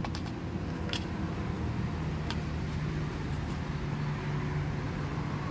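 A vehicle engine running steadily, a low hum. A few short, light clicks come from plastic boxes of crimp terminals being handled, about once a second early on and again near the two-second mark.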